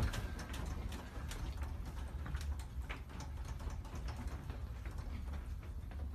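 A room shaking in an earthquake: its door and fittings rattle and click irregularly over a steady low rumble.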